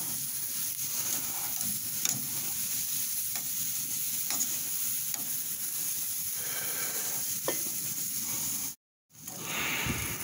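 Asparagus sizzling in a perforated metal grill basket on a hot grill while it is stirred with metal tongs, giving a few light clicks of metal on metal. The sound cuts out briefly near the end.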